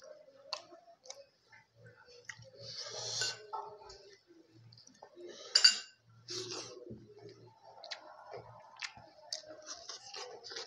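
Close-up mouth sounds of someone eating fish by hand: scattered wet clicks and lip smacks of chewing, with a short sucking hiss about three seconds in and a louder smack a little past halfway.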